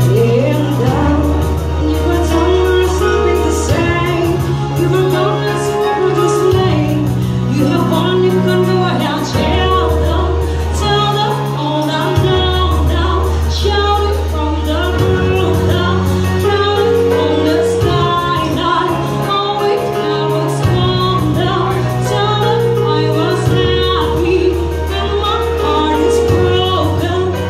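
A woman singing into a microphone over an arranger keyboard's accompaniment, an organ tunggal one-keyboard band, with a drum beat and a bass line that changes note every couple of seconds.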